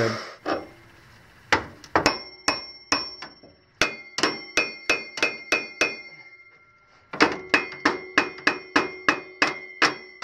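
A hammer taps repeatedly on a riding mower's steel engine pulley, which is rust-seized on the crankshaft and has just been heated to free it. Each sharp metallic tap rings briefly. After a few single taps, the taps come about three a second in two runs, with a short pause between them.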